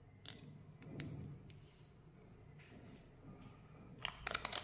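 Small plastic toy pieces and their wrapping handled by hand: a few faint scattered clicks, then a short burst of crackling clicks about four seconds in, the loudest part.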